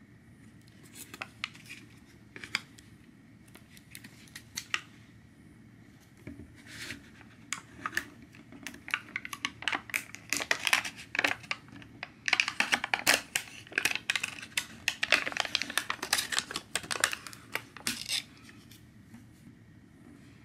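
Printed film lid being peeled off a plastic jelly cup: a few light clicks and crackles as the cup is handled, then a long run of dense crinkling and crackling as the lid pulls away, stopping about two seconds before the end.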